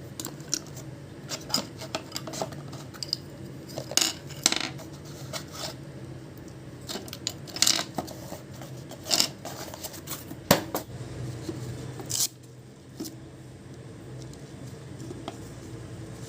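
Small hard plastic and metal parts being handled: irregular sharp clicks, taps and light clinks with some rustling, the loudest tap about ten and a half seconds in, over a low steady hum.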